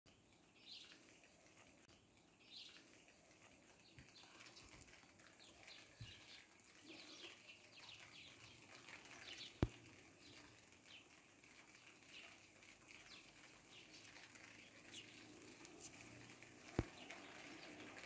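Small birds chirping faintly and repeatedly over a soft steady hiss. Two sharp clicks stand out, one about halfway through and one near the end.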